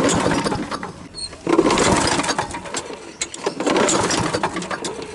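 Gas lawn mower being pull-started by hand: about three hard tugs on the recoil cord, the engine turning over roughly each time without catching, because the mower is out of gas. The audio is pitched down.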